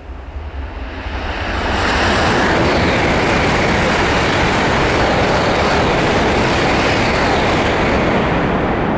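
Coupled E4 series Max double-decker and E3-2000 series Tsubasa Shinkansen train passing: a loud, even rushing noise of wheels and air that builds over the first two seconds, holds steady, and starts to fade near the end.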